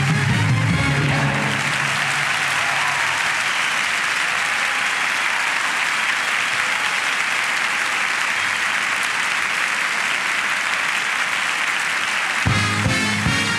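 Large theatre audience applauding. Music fades out over the first second or so and starts up again about a second before the end.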